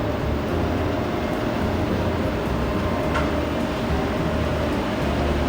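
Toyota REVO ROCCO 2.4 diesel pickup running steadily: an even low rumble with a constant mid-pitched hum.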